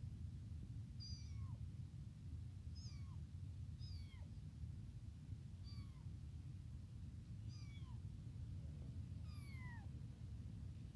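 Young kitten mewing over and over, about six short high cries that fall in pitch, a second or two apart, with the longest near the end, over a steady low background rumble. These are the insistent cries of a hungry kitten calling for its mother.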